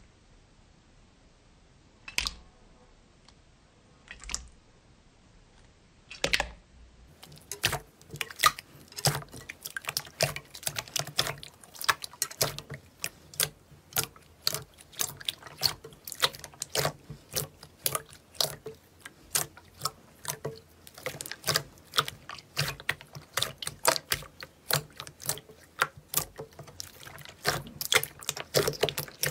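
Glossy green slime being pressed and kneaded by hand: wet squelches and small air-pocket pops. There are only a few separate pops at first, then from about seven seconds in a quick run of clicky pops and crackles, several a second.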